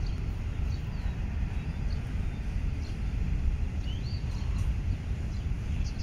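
Intermodal freight train's wagons rolling past with a steady low rumble, while a few short bird chirps sound above it.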